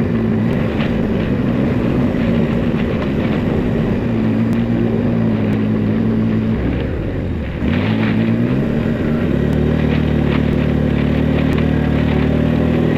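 Vehicle engine running while driving. About seven seconds in the revs drop briefly, then climb again and settle into a steady drone.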